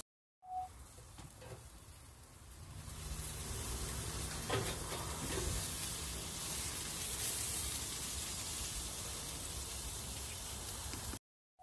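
Beef steak sizzling on a hot grill. The sizzle builds up over the first few seconds, then holds steady, with a single click a little before the middle.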